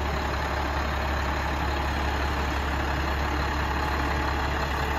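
International 4400's DT466 straight-six turbo diesel idling steadily with a low, even rumble.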